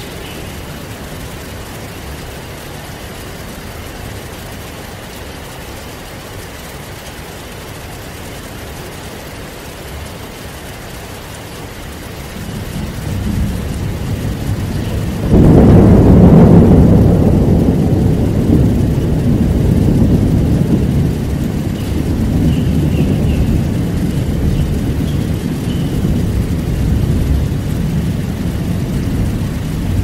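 Heavy rain falling steadily. About twelve seconds in, a low rumble of thunder builds, then breaks into a sudden loud thunderclap a few seconds later, which rolls on as long rumbling thunder slowly easing off.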